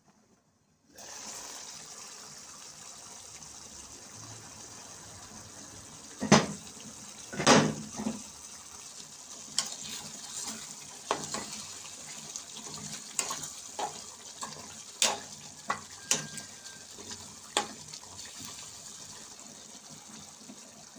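Pot boiling hard on the stove: a steady bubbling hiss with scattered sharp pops and clicks, the loudest two about six and seven and a half seconds in.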